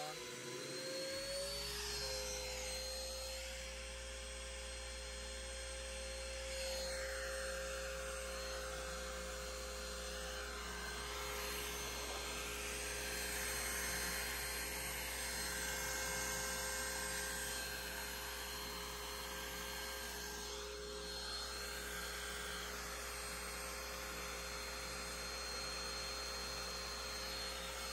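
CNC trim-router spindle running steadily at speed with a high whine, while the machine's stepper motors drive the gantry and add higher tones that rise and fall as it moves. A low hum joins about a second in.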